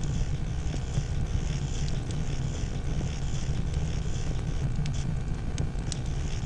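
Large building fire burning: a steady low rumble of flame with scattered sharp crackles and pops of burning timber.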